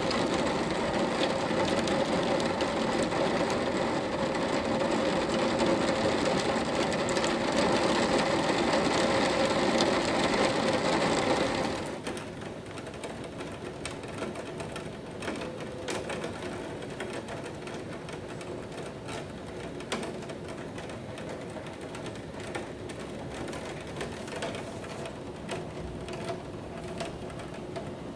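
Heavy rain pouring down in a dense, steady hiss. About twelve seconds in it drops sharply in level, leaving a quieter patter full of small clicks of drops.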